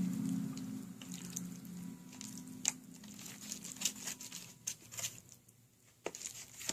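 Homemade glue-and-borax slime being kneaded by hand: wet squishing with short sticky clicks and pops, as the clumpy, freshly mixed slime is worked together. A low steady hum fades out over the first few seconds.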